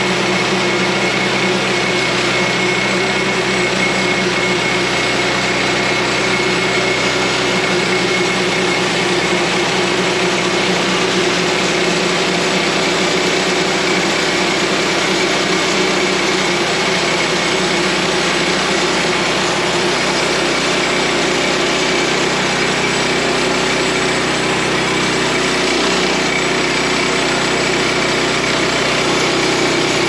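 Woodland Mills HM126 portable bandsaw mill running steadily under power, its gas engine held at a constant speed while the band blade is pushed slowly along through a log.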